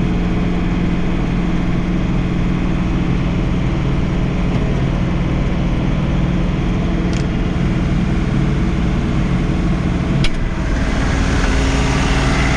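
John Deere 3046R compact tractor's three-cylinder diesel engine running steadily while snowblowing. About ten seconds in, after a short click, the engine note shifts and a rushing hiss grows louder.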